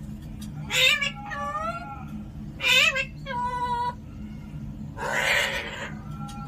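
Alexandrine parakeet giving a run of meow-like calls: four short calls with a bending pitch in the first four seconds, then one harsh, noisy screech about five seconds in.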